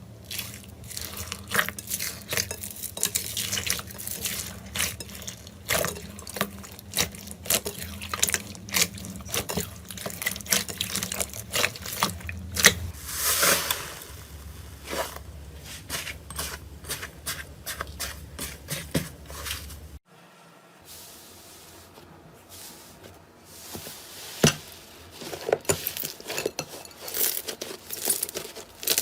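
Slime being squeezed and poked by hand: quick wet clicks, pops and squelches in dense runs. About two-thirds of the way through the sound cuts to a quieter clip with fewer, scattered pops.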